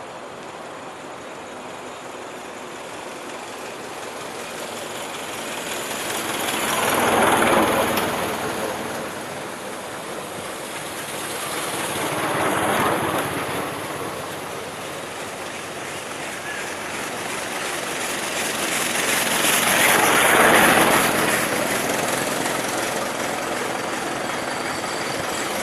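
Old cars driving past one after another: three pass-bys, each rising and fading away.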